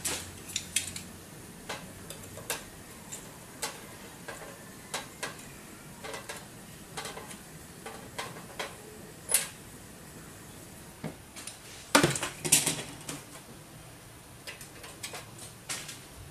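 A metal tool clicking and clinking against ceramic processors and the steel plate of a hot plate, working at caps whose solder is being melted loose. The clicks are light and irregular, with a quicker, louder cluster about twelve seconds in.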